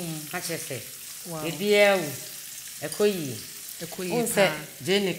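Sliced red onions frying in hot oil in a wok: a steady sizzle under people talking.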